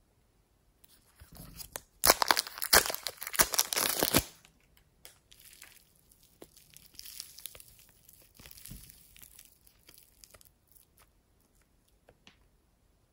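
Soft yellow foam clay stretched and torn apart by hand, giving crackling tearing sounds: a dense, loud run of crackles about two seconds in, then quieter crackling for several seconds, fading to a few faint taps near the end.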